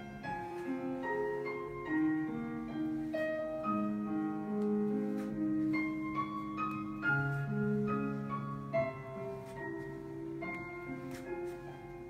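Instrumental background music: a gentle piano melody over held chords, the notes changing every second or so.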